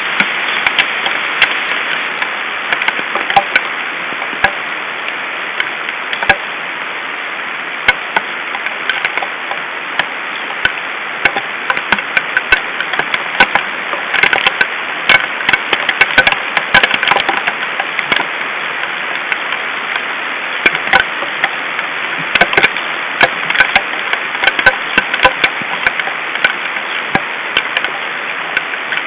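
Hail falling: many irregular sharp clicks of hailstones striking, denser in spells, over a steady hiss.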